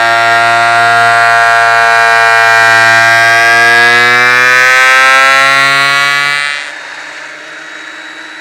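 Ridgid benchtop thickness planer running loud with a steady motor whine that drifts slightly in pitch under load as it surfaces a chainsaw-cut plank. About six and a half seconds in the loudness drops sharply and the machine runs on more quietly.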